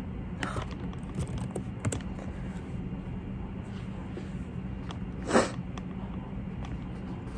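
A single short, sharp sniff through a nose stuffed up by allergies, about five seconds in, over a steady low room hum.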